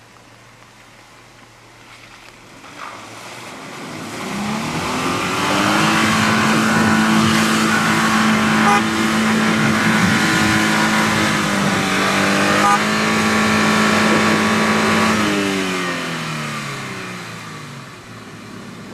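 A motor vehicle's engine approaches, passes close and moves away: it grows louder over a few seconds, holds a steady pitch, then drops in pitch and fades.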